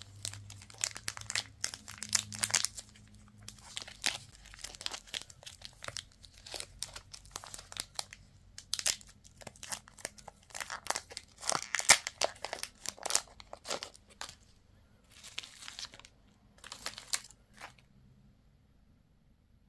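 Packaging crinkling and tearing as candy and toy packs are unwrapped, in irregular bursts of rustles and crackles that die away near the end.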